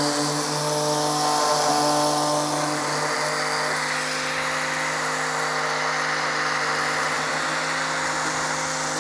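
Electric delta (detail) sander running steadily, its triangular pad sanding the corners of a wooden door panel. A constant motor hum over the hiss of the abrasive on the wood.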